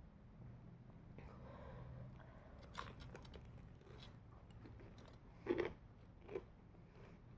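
Someone biting and chewing crispy fried chicken: scattered crunches and crackles from the breaded coating, the loudest coming about five and a half seconds in with another just after.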